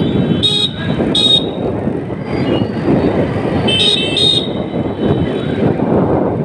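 Steady road traffic noise, with vehicle horns beeping in short pairs: two beeps about half a second and a second in, and two more about four seconds in.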